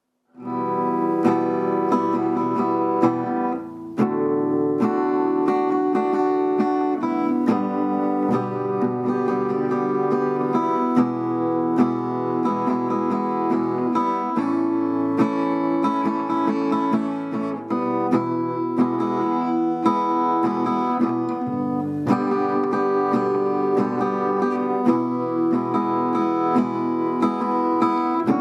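Strummed acoustic guitar music, steady chords with regular strokes.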